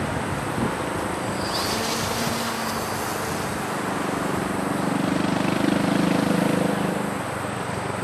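Electric motor and propeller of a radio-controlled eagle-shaped bird-deterrent drone in flight, a steady hum that grows louder about four seconds in and eases off near the end.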